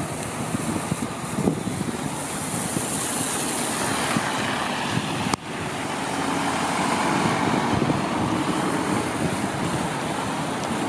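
Fire engine's diesel engine running in the station bay, under a steady wash of rain and wind noise. The sound drops out sharply for a moment about five seconds in.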